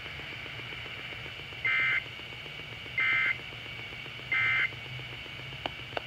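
Emergency Alert System SAME data tones played through a weather-alert radio: three short, identical buzzy data bursts about 1.3 seconds apart, the pattern of the end-of-message code that closes an alert.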